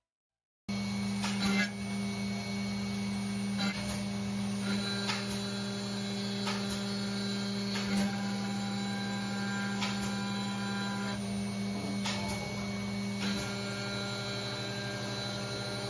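CNC router spindle running with a steady whine while its bit drills a series of holes into a wooden block, with a short crackle every second or two as the bit cuts into the wood. It starts abruptly just under a second in.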